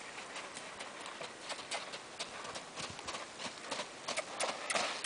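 Horse's hoofbeats on a sandy pen floor, a steady run of footfalls that grow louder near the end as the horse comes close.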